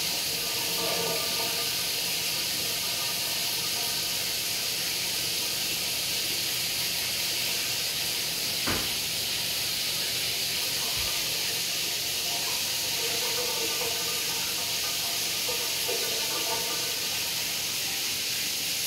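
Shower running: a steady hiss of spraying water during a drain test of the bathroom's grey-water line, with one sharp click about nine seconds in.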